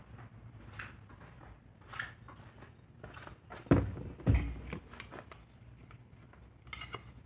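Handling noises from a box fan being wiped down: scattered light knocks and rubbing, with two heavy thumps about three and a half and four seconds in.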